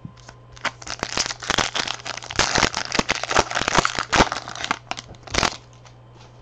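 Trading card pack wrapper being torn open and crinkled by hand: a dense run of crackles and rustles that stops about a second before the end.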